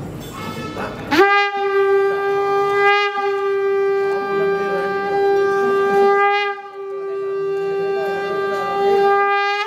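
Conch shell blown by mouth, sounding one long, steady note that starts about a second in and is held for some eight seconds, with a brief dip partway through.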